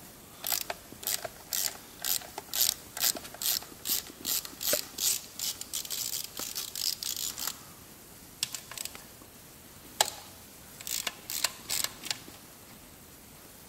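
Hand ratchet clicking as it undoes the bolts of the lower timing belt cover on a VW AMF TDI engine. A steady run of clicks for about seven seconds, then a pause and a few shorter bursts.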